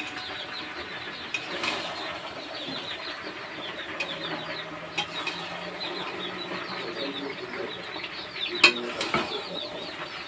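A metal spatula stirs thick vegetable curry in a metal pot, with a few sharp clinks against the pot, the loudest one near the end. A steady background of chirping runs throughout.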